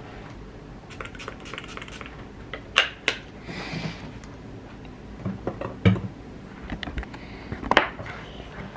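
Small perfume spray bottle being handled: clicks and knocks of the cap and bottle, with one short hissing spray about three and a half seconds in.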